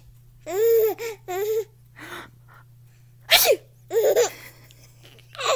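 A little boy laughing in high-pitched giggles at sneeze sounds: two bursts of laughter, then a sneeze a little past the middle, more laughter straight after it, and another sneeze right at the end.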